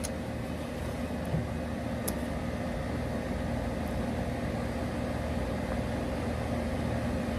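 Steady hum of an air conditioner's outdoor unit running, with a faint click about two seconds in.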